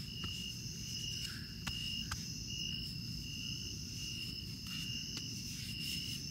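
Crickets chirping in a steady pulsing trill, each pulse about half a second long, over a low steady background rumble, with a few faint clicks.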